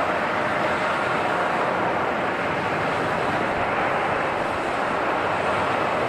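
Jet airliner engines running, heard as a steady, even rushing noise with no clear whine tones.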